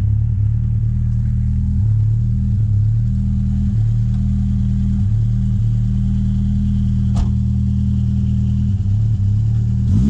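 BMW E30 318iS rally car's 1.8-litre four-cylinder engine idling steadily, with one sharp click about seven seconds in.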